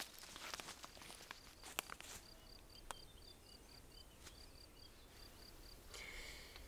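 Quiet forest ambience: a few faint crackles of feet shifting on leaf litter in the first couple of seconds, then a faint high chirping, short even notes about four to five a second, that stops about five seconds in.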